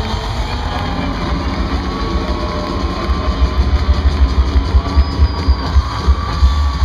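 Live rock band playing, heard from within the crowd, with heavy booming bass. A steady kick-drum beat comes to the fore about halfway in, at roughly three beats a second.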